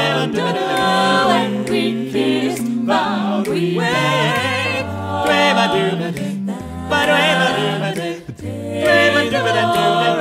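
Mixed-voice a cappella group singing in close harmony, a low bass voice stepping from note to note beneath the upper voices, with a brief break about eight seconds in.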